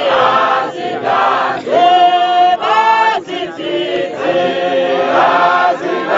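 A congregation singing a hymn together, many voices in chorus with long held notes.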